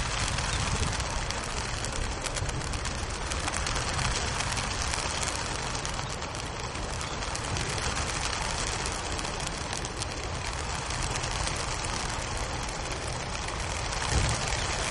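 Wings of a large flock of racing pigeons flapping as the birds are released from a transport truck: a dense, steady, crackly rush of wingbeats.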